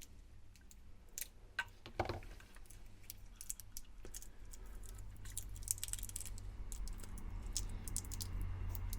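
Scattered light clicks and small handling noises from the opened plastic battery pack of a headtorch being turned over and examined, more frequent in the second half, over a low steady hum that grows slightly louder partway through.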